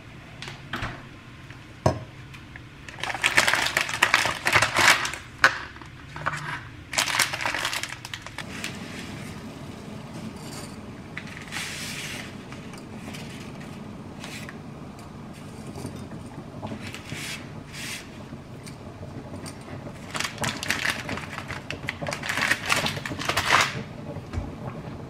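Plastic spaghetti packet crinkling in several bursts as it is handled and opened, with dry spaghetti rattling against a steel stockpot as it goes into the water.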